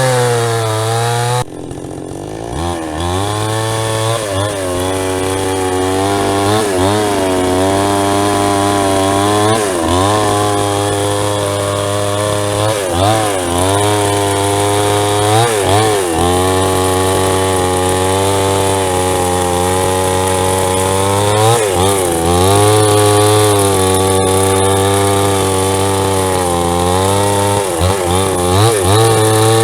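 Gasoline chainsaw with a 22-inch bar cutting through wood, running at high revs; its engine pitch repeatedly dips under load and climbs back.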